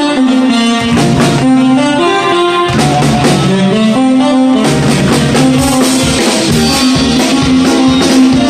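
Live rock 'n' roll band playing, with electric guitar, upright bass and drum kit.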